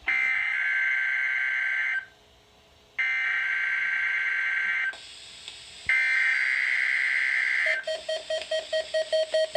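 Three bursts of Emergency Alert System SAME digital data over weather radio, each a harsh warbling buzz about two seconds long with roughly a second of quiet between them, marking the start of a coded weekly test. Near the end a fast pulsing tone begins.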